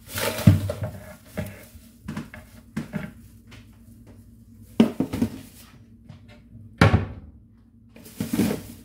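Kitchen handling noises: a series of separate knocks and clatters, the loudest about seven seconds in, as a plastic storage basket and other things are taken from a high cupboard and set down on the counter.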